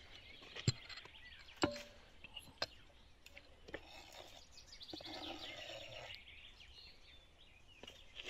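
Kitchen knife chopping green onions on a wooden cutting board: single sharp taps about a second apart. A bird chirps briefly near the middle.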